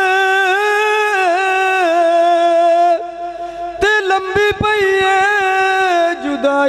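A man singing a Punjabi devotional kalam into a microphone, a single voice with no instruments, drawing out long, slowly wavering notes. About three seconds in the note breaks off with a few brief stops and starts, then a long held note resumes.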